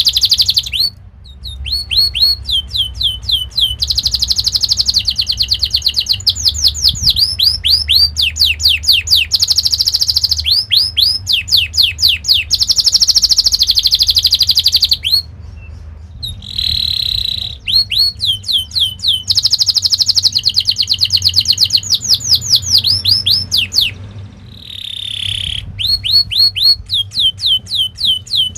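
Domestic canary singing a long, loud, fast song: runs of rapidly repeated falling whistled notes alternating with buzzing trills (rolls), broken by two or three brief pauses.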